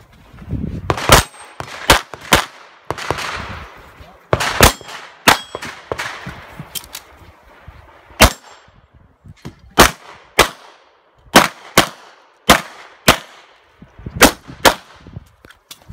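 Handgun shots fired in a rapid string during a practical-shooting stage, about fifteen in all, several in quick pairs, with short gaps between groups.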